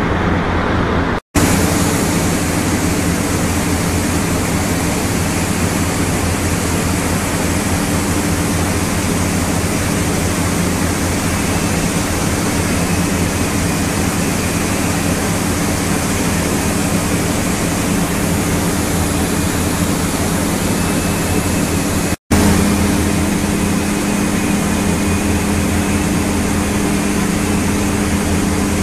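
Horizontal vacuum belt filter and the plant machinery around it running: a steady, loud noise with a low hum underneath. It breaks off for an instant about a second in and again about 22 seconds in.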